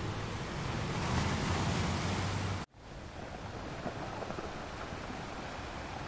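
Rough sea surf breaking and washing against rocky cliffs, a steady rushing with wind in it. A low rumble beneath it stops where the sound cuts out abruptly for a split second, about two and a half seconds in, and then the surf resumes.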